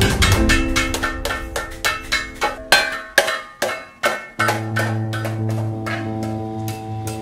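Wooden mallet tapping tin sheet over a steel pipe, a quick run of sharp strikes, about five a second, that spaces out and stops a little over four seconds in. Background music with held chords plays throughout and carries on alone after the tapping ends.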